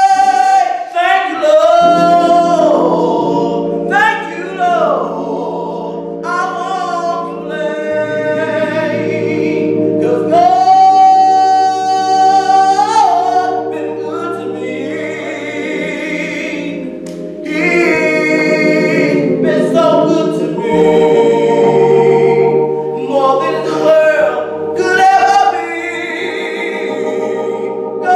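A man singing a slow gospel song solo, with long held notes and gliding runs, over steady held chords underneath that change every few seconds.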